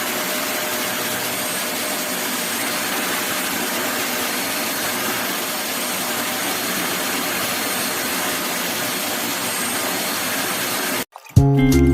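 Deerma DX115C handheld stick vacuum cleaner running steadily with an even rushing noise, then cutting off abruptly near the end; music starts straight after.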